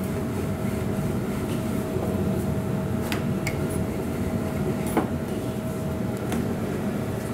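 Steady rumble and hum of kitchen ventilation, with a few light clicks and knocks of a wooden rolling pin working stuffed paratha dough on a stainless-steel worktop, the sharpest knock about five seconds in.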